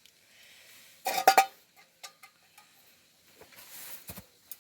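Cookware clattering: a quick run of loud knocks with a brief metallic ring about a second in, then a short hiss and a couple of softer knocks near the end.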